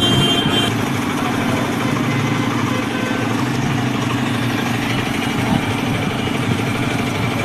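A motor vehicle's engine running steadily close by. A high horn-like tone ends within the first second.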